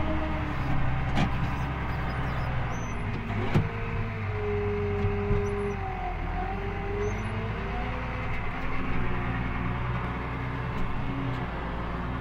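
McCormick G135 Max tractor engine running steadily under load while ploughing, heard from inside the cab, with a whine that holds and then rises and falls in pitch midway. A sharp knock about three and a half seconds in.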